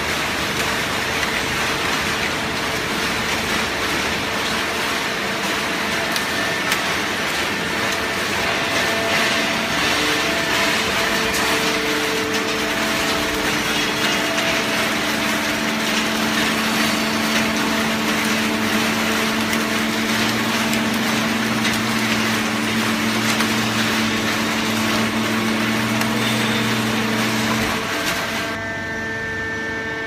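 Automatic horizontal hydraulic waste-paper baler running: a steady machine hum with several held tones over dense mechanical noise. About halfway through, lower tones join in. Near the end the noise thins out, leaving mostly the hum.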